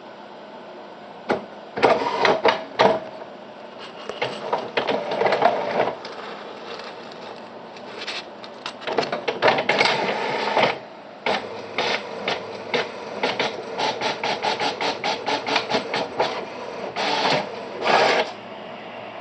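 Printer printing a page: separate bursts of rasping carriage and paper-feed noise, then a run of quick, even clicks as the paper steps through, and two last short runs near the end.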